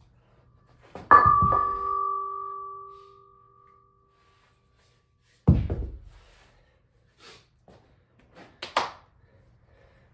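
Heavy globe-ended Thomas Inch replica dumbbells being shuffled on a concrete floor. About a second in, two bells knock together with a loud metal clang that rings for a couple of seconds. Midway a deep thud comes as one is set down, then a few light knocks near the end.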